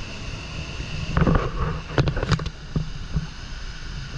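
Steady roar of Horseshoe Falls' water pouring over the brink, with wind buffeting the microphone. A few sharp knocks come about halfway through.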